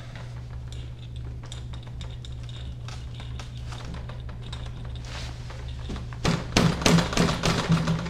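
Light plastic clicks and rattles of a 12-volt power cord and its plug being handled and fitted to the power socket of a portable fridge, with a louder run of clicks about six seconds in.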